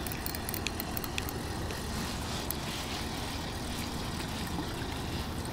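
Steady low rumble with faint, scattered light clicks: handling noise of a float rod and spinning reel while a hooked fish is played in.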